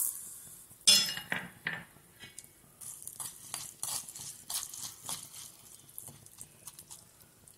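A metal spoon stirring chana dal and urad dal frying in sesame oil in a nonstick kadai, clinking and scraping against the pan in irregular strokes, the sharpest knock about a second in, over a faint frying sizzle.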